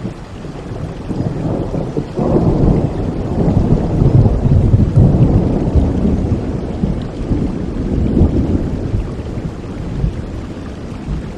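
Thunder rumbling over steady rain: a deep rumble builds about a second in, is loudest through the middle, and dies away near the end.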